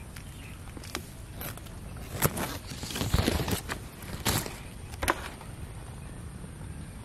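Dry leaves, twigs and plant stems rustling and crackling close to the microphone, with a few sharp snaps, busiest about two to five seconds in.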